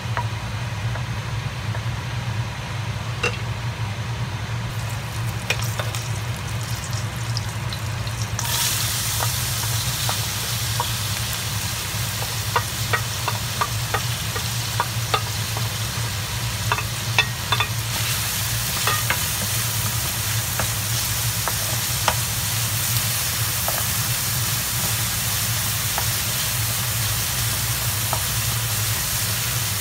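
Butter stirred with a wooden spoon in a stainless steel frying pan, over a low steady hum. About a third of the way in, diced onions go into the hot butter and a sizzle starts, with the spoon clicking against the bowl and pan as they are scraped in and stirred. The sizzle grows louder a little past halfway and holds steady.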